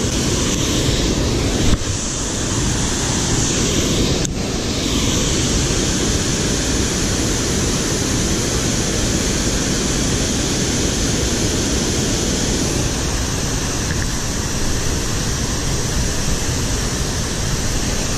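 Waterfall pouring over a stone dam: a steady, loud rush of falling water, with a couple of brief knocks in the first few seconds.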